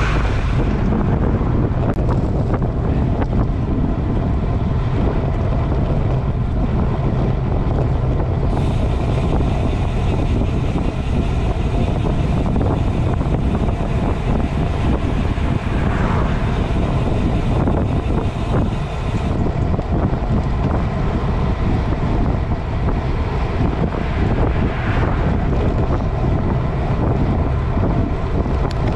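Steady wind rumble buffeting the microphone of a camera on a moving bicycle, mixed with tyre noise on a wet road.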